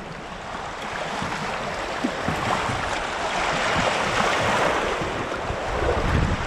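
White-water rapid rushing and splashing around a tandem open canoe, growing louder from about a second in as the canoe runs into the waves. Wind buffets the microphone with low thumps underneath.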